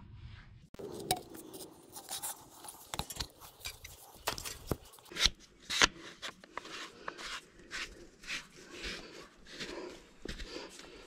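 Hard plastic clicking, knocking and scraping as blue polyethylene pipe and compression fittings are handled and fitted together, in an irregular run of short clicks with a few sharper ones about halfway through.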